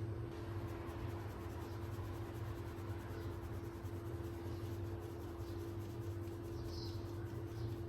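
A steady appliance-like hum with one constant mid-pitched tone, with faint light taps and rustles of handling over it.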